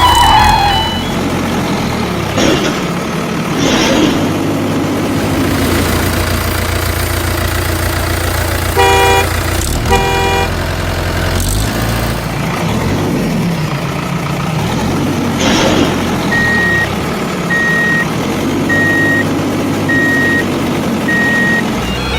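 Heavy truck engine running steadily, with two short horn honks about nine seconds in and a series of reversing beeps, about one a second, in the second half.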